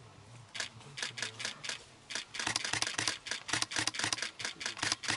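Camera shutters clicking, a few single clicks at first, then rapid continuous bursts from about two seconds in.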